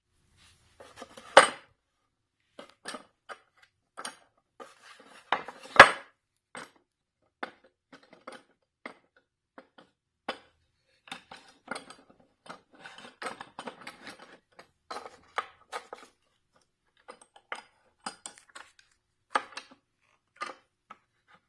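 Metal clamps and wooden boards being handled: irregular clinks and knocks of metal against metal and wood, with two louder knocks, one about a second and a half in and one about six seconds in.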